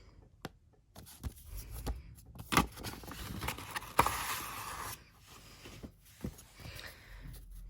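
Album packaging being handled: a few sharp knocks and taps, then a longer scraping rustle as paper and cardboard items slide back into the box.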